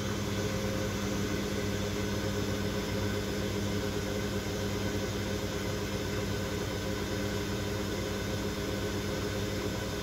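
Maunfeld MFWM1586WH washing machine's inverter motor spinning the drum in its spin cycle: a steady hum with a few constant tones.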